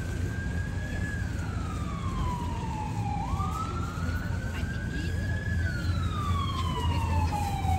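Emergency vehicle siren wailing, its pitch rising and falling slowly about once every four to five seconds, over a low steady rumble.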